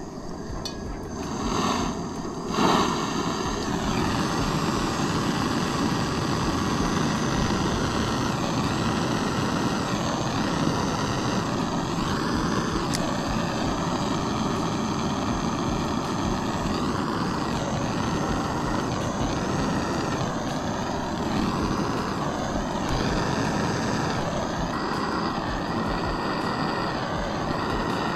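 Handheld butane canister torch being lit, with a couple of short bursts in the first three seconds, then its flame burning with a steady, loud hiss.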